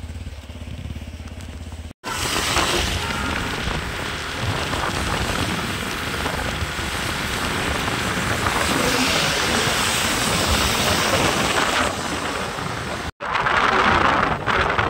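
Motorcycle engine idling with a steady low hum. After a short silent gap about two seconds in, a steady, loud rushing of wind and wet-road noise as the motorcycle is ridden, broken by another brief gap near the end.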